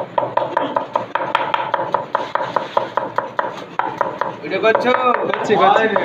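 Kitchen knife chopping onion on a wooden chopping board: rapid, even strokes, about four a second, each a sharp knock of the blade on the board.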